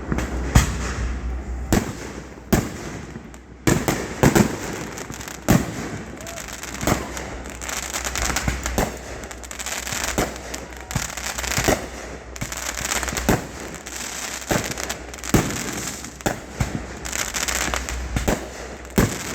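Fireworks show at close range: aerial shells launching and bursting, a run of sharp bangs about once a second, and from about four seconds in a dense crackling fizz between them.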